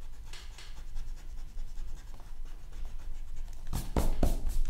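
Pen-style stick eraser rubbing back and forth on paper, erasing pencil guidelines, with a few sharper knocks near the end.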